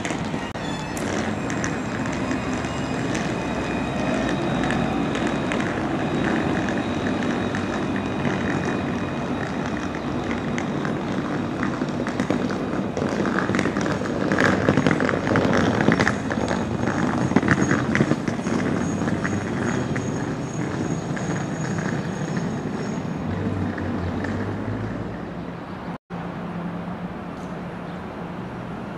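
Alstom Citadis 302 tram running along street track, with thin high tones over the running noise and loudest as it comes close about halfway through. Near the end the sound switches to road traffic.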